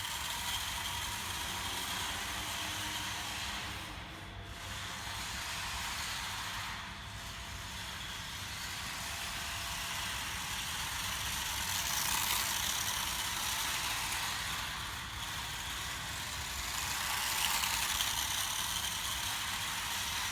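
Micro RC cars driving at high speed on smooth pavement, a steady hiss of small motors and tyres that swells twice, about two thirds of the way through and again near the end, as the cars pass close.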